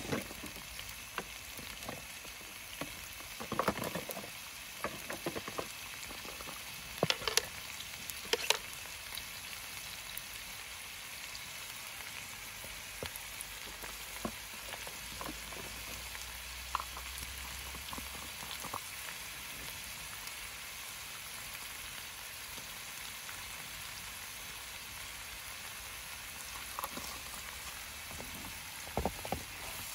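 Chopped onions and vegetables sizzling steadily in a frying pan. A few sharp clicks and knocks stand out about 4, 7 and 8 seconds in and again near the end.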